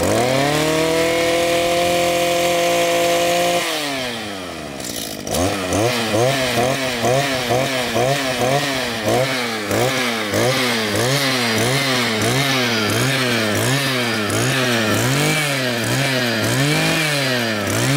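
Mitsubishi TLE48 brush cutter's 47cc two-stroke engine held at full throttle for about three and a half seconds, then dropping to idle. After a moment it is revved up and down in quick blips, more than one a second, over and over.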